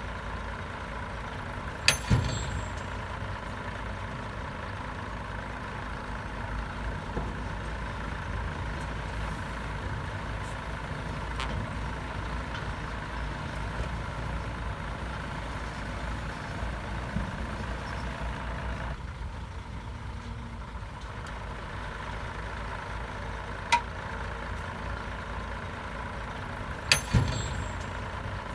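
Heavy diesel engine of a Komatsu D68 crawler bulldozer running steadily while pushing soil, with a few sharp clanks, the loudest about two seconds in and a pair near the end.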